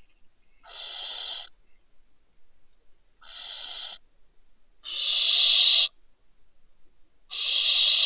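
Barn owl giving four harsh, hissing screeches, each just under a second long and about two seconds apart; the last two are the loudest.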